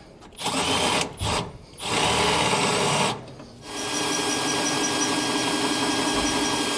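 Milwaukee Fuel cordless drill boring out a hole in a motorhome's metal frame rail, opening it up to half an inch. It comes in three short bursts, then runs steadily from about four seconds in.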